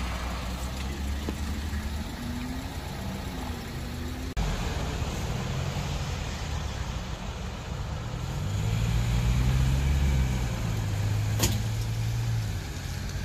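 A steady low vehicle engine hum, then after a sudden cut a truck's engine running louder, its pitch rising and falling as it moves off, loudest about eight to twelve seconds in. A single sharp click comes just after eleven seconds.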